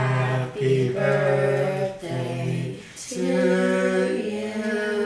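Several kazoos hummed together in a slow tune of held notes with a bright buzz, at times sounding different pitches at once; the notes change about every second, with short breaks between phrases.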